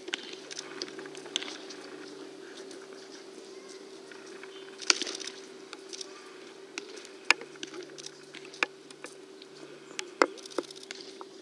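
Baseballs popping into leather gloves during a game of catch: sharp, single pops at irregular intervals, several from different distances, over a faint steady hum.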